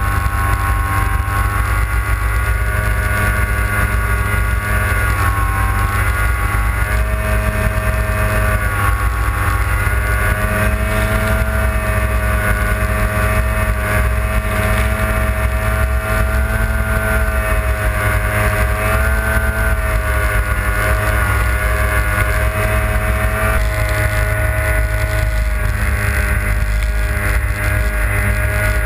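Polaris RMK snowmobile's two-stroke engine running hard and steady, its pitch drifting slightly up and down with the throttle, under a heavy rumble of wind and track noise.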